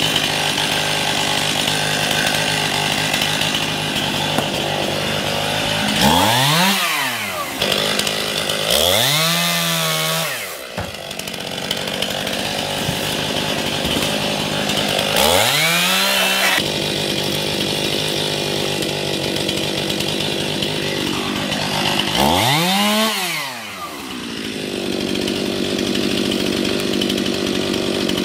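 Two-stroke gas chainsaw running, its engine revving up and dropping back down four times between steadier running.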